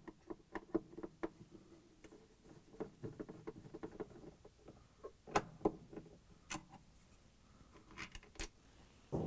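Phillips screwdriver backing out the small screws that hold a washer's plastic shifter actuator, with irregular light clicks, taps and scrapes of metal and plastic as the screws and actuator are handled. A few sharper clicks come past the middle.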